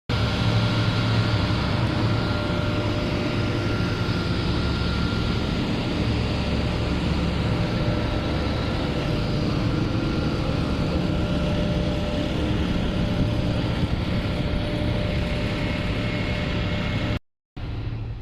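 Heavy factory machinery running steadily: a loud low drone with a few thin steady whines above it. It cuts out briefly near the end, then comes back quieter.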